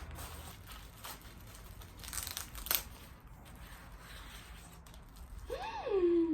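Packaging rustling, crinkling and tearing as a shipped plant is unwrapped, with a louder crinkle about two and a half seconds in. Near the end there is a short voice-like sound that rises and then falls in pitch.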